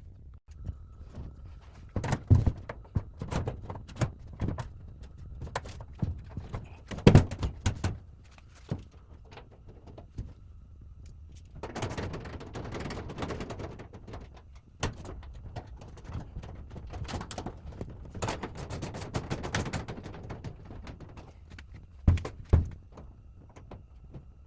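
Irregular knocks and clunks of sheet-metal dryer parts being handled and fitted, with stretches of scraping and rubbing.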